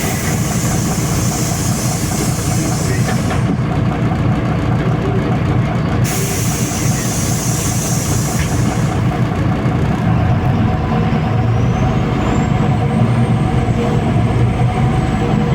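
MAZ-203 city bus heard from inside: its diesel engine running steadily, with two hisses of compressed air lasting about three seconds each, one at the start and one about six seconds in. A faint high whine rises and falls over the last few seconds.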